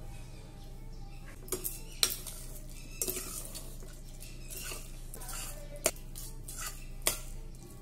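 A metal ladle stirring thick rice kheer in a pressure cooker, scraping and squelching against the pot, with sharp clinks against the rim every second or two.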